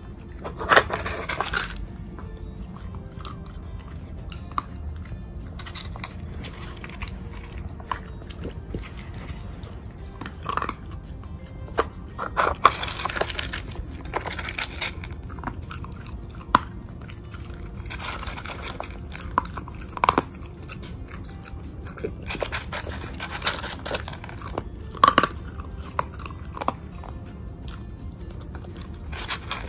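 A beagle chewing and crunching dry kibble in irregular bursts, with sharp clicks and knocks as its muzzle works the plastic puzzle feeder.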